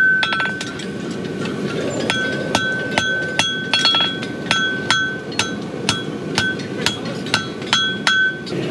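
Farrier's hammer forging a horseshoe on an anvil: a steady run of about two blows a second, each leaving a clear metallic ring. A few quick, lighter taps come just after the start, and the regular hammering takes up about two seconds in and stops near the end.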